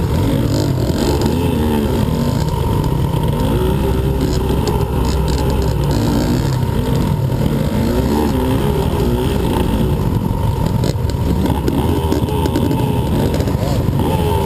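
A 2015 Husqvarna TE125 125cc two-stroke dirt bike engine, heard on board, revving hard with its pitch rising and falling again and again through throttle changes and gear shifts.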